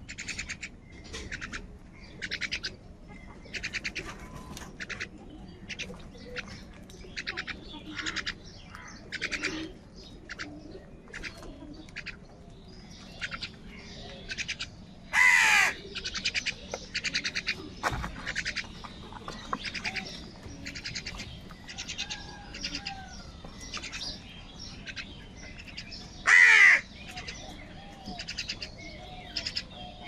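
A flock of house crows cawing again and again in short calls, with two much louder, longer caws about halfway through and again near the end.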